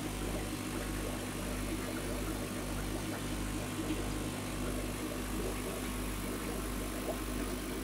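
Aquarium pumps and filtration running: a steady low hum with an even hiss over it.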